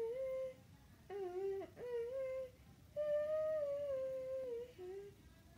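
A high-pitched voice humming a short wordless tune in five held notes, the longest about a second and a half, stepping up and down in pitch with short gaps between notes.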